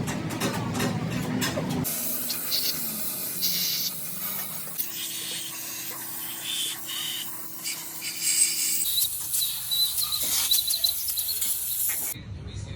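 Hissing, like a spray or air jet, in a few short stretches that change abruptly, with a steady low hum under one of them and a high whine in another.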